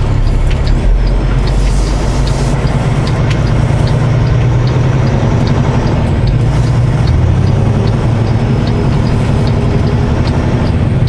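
Semi-truck diesel engine running at low speed, heard from inside the cab as a steady low drone, with a faint regular ticking over it.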